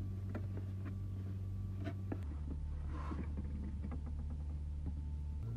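Steady low hum with scattered light clicks and taps over it; the hum drops to a lower pitch a little over two seconds in and returns to the higher pitch near the end.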